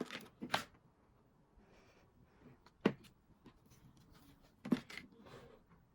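A few light taps and clicks of small toy pieces and stickers being handled, with faint rustling in between.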